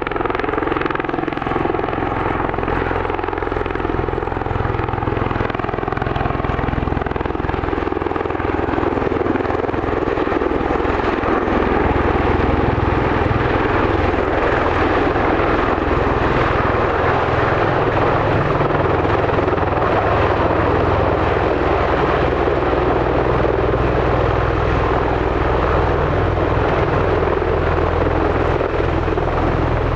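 MV-22 Osprey tiltrotor running steadily: a turbine whine with a few steady tones over the low drone of its two big proprotors.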